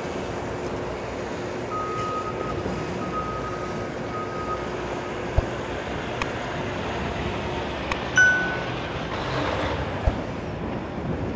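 Steady city street traffic noise with a faint hum and a broken high tone in the first few seconds. A sharp metallic clink that rings briefly comes about eight seconds in, with a few smaller clicks and a thump around it.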